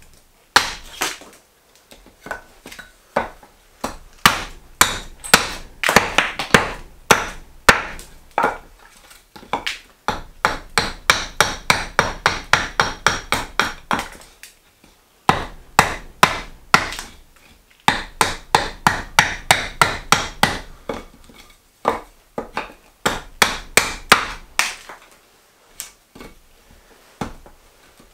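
Carving axe hewing a green maple spoon blank on a wooden chopping block: runs of sharp chopping strikes, up to about four a second, broken by short pauses.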